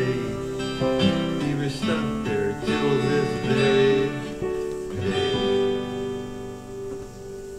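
Acoustic guitar playing the closing bars of a folk ballad, picked notes and chords ending on a final chord about five seconds in that rings on and fades away.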